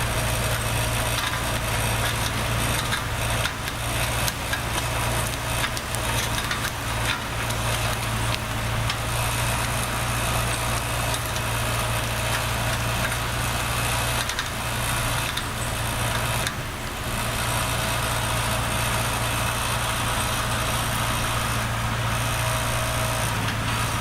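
Farm tractor engine running steadily as the tractor works back over frozen logs, with scattered sharp cracks of brittle frozen branch stubs snapping off.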